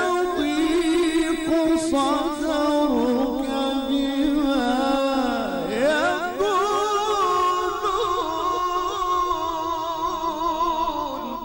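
A man's solo voice chanting Quran recitation in the melodic, ornamented tajweed style. The line swoops down and back up about midway, then holds one long wavering note that fades away at the end.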